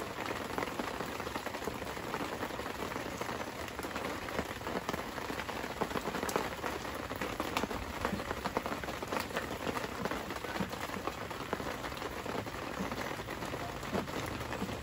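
Heavy rain falling steadily, a constant hiss dotted with many separate drop hits close by.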